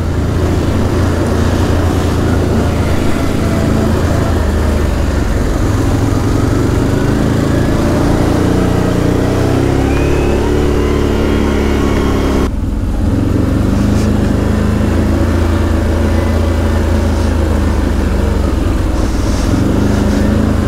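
ATV engine running under way, its pitch rising and falling with the throttle, over a steady hiss of heavy rain and wind. The sound changes abruptly about two-thirds of the way through.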